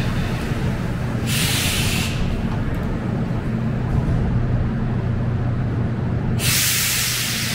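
Concarril NM-79 rubber-tyred metro train drawing to a stop at the platform, its running gear and equipment humming steadily. Two short bursts of compressed-air hiss come over it, one about a second in and another near the end.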